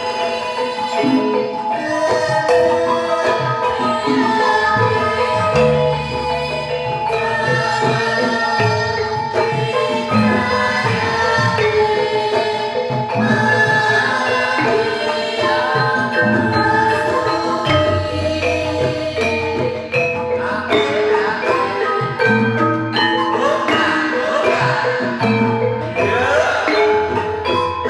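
Campursari ensemble playing: the struck metal keys of gamelan instruments ring out in interlocking notes over drumming and a bass line.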